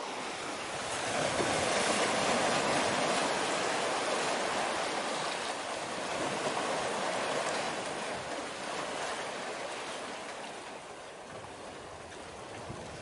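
Steady rushing wash of water and waves. It swells about a second in, holds for several seconds, then eases off.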